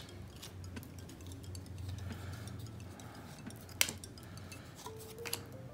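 Cardboard trading cards being leafed through by hand and laid on a wooden table: faint slides and small taps, with one sharper tap about two-thirds of the way in.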